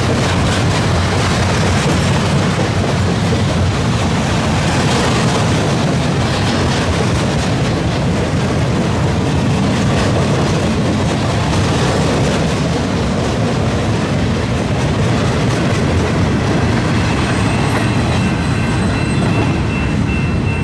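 Railroad flatcars of a maintenance-of-way rail train, loaded with long steel rail, rolling past close by: a steady rumble of steel wheels on the track with faint clicking. A thin high tone comes in near the end.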